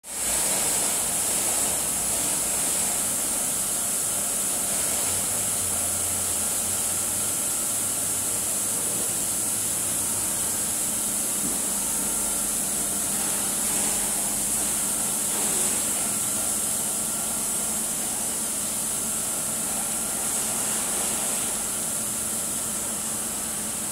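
Screw air compressor running steadily: a constant hum under a strong, high hiss.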